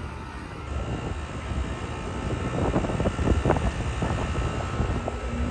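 2021 Payne Sentry central air conditioner outdoor units running: a steady low rumble of compressors and condenser fans.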